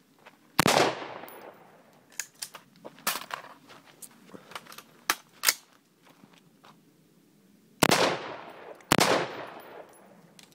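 AR-15 rifle shots, each followed by a long fading echo: one about a second in, then two about a second apart near the end. A few fainter sharp cracks fall in between.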